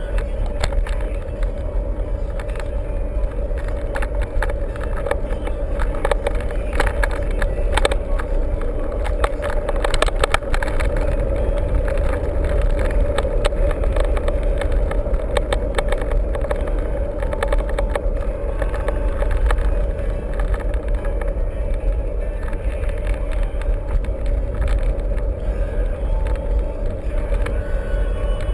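Mountain bike ridden over a rough trail: steady wind rumble on the mount-camera microphone with rapid rattles and clicks from the bike, busiest in the first third.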